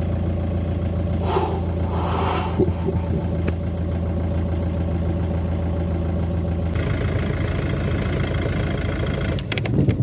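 2006 Peugeot Partner van's engine running steadily, heard from inside the cab, with its tone shifting about seven seconds in and a few clicks near the end. It has just started after a crank/no-start fault but is still in safe mode, held to about 2,500 revs.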